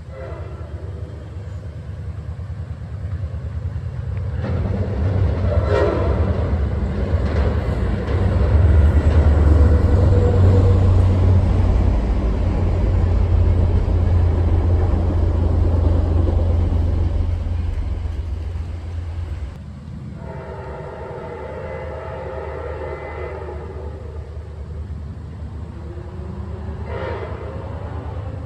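Diesel-hauled passenger train passing close by, a loud deep rumble that swells and then drops away suddenly as it clears. Its multi-note horn sounds briefly during the pass and again for a few seconds after it.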